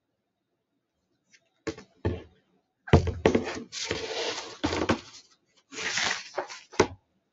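A hardcover picture book being handled: a thump about three seconds in as it comes down onto the desk, then paper rustling and rubbing as the cover is opened and pages turned, with a sharp click near the end.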